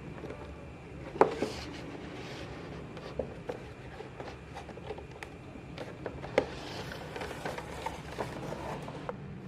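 Hard plastic clicks and knocks from a plastic transforming robot toy being handled, irregular, with the sharpest about a second in and again past six seconds, over a steady low hum.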